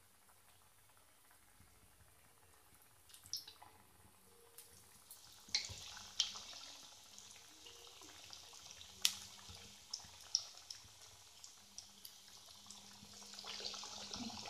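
Corn vadas deep-frying in hot oil: a soft sizzle that starts about three seconds in and builds toward the end, with scattered sharp pops and clicks.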